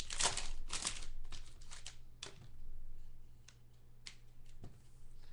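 Trading cards and a card pack wrapper being handled: dense rustling and crinkling for the first couple of seconds, then a few light taps and clicks.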